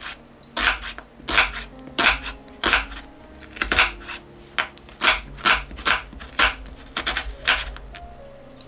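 Chef's knife slicing a red onion on a bamboo cutting board: a crisp cut ending in a knock on the board, repeated about every half second, stopping about a second before the end.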